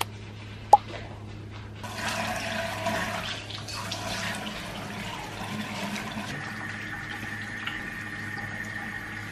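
Water running from a wall-mounted bathroom faucet into a sink basin, turned on about two seconds in and then flowing steadily, with a brief tick just before.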